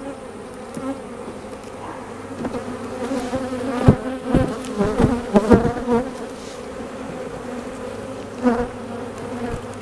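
Honeybees buzzing around an opened hive: a steady hum with individual bees whining past close by, their pitch wavering. A few sharp knocks come around the middle.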